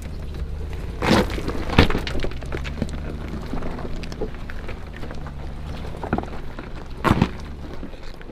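Off-road vehicle engine running at low speed as it crawls on the trail, with sharp cracks and thuds about a second in, just under two seconds in, and near seven seconds.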